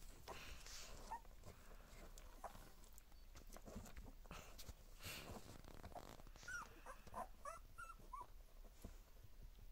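Two-week-old border collie puppies faintly whimpering, with a run of short, high squeaks in the second half, over soft scuffling as they crawl over one another.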